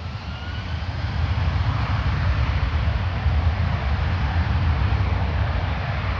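Jet engines of a Qantas twin-engine widebody airliner spooling up for takeoff. A faint rising whine builds over the first two seconds into a loud, steady rumble.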